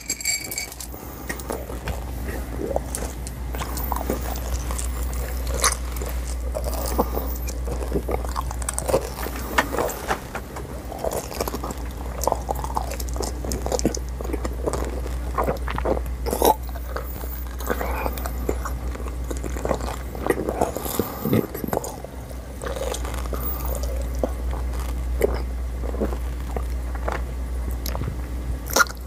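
Xylitol pellet gum being chewed close to a clip-on microphone: a constant run of irregular wet smacks and small clicks from the mouth, over a steady low hum.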